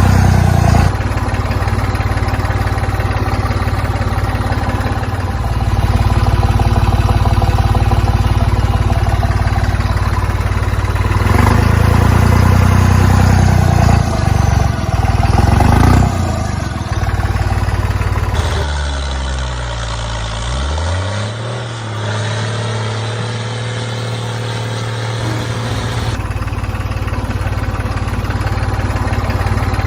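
A small motor running steadily, its pitch dropping and rising back again about twenty seconds in.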